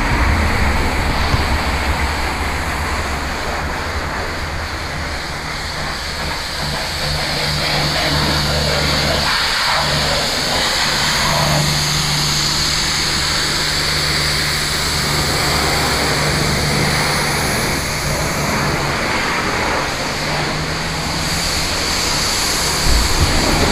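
BMW E46 M3's straight-six engine idling steadily, a low even hum that swells and fades slightly as the camera moves around the car.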